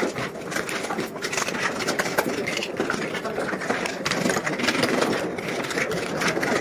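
A machine running steadily, like an engine, with scattered knocks and scrapes from a hammer and wooden pieces being worked.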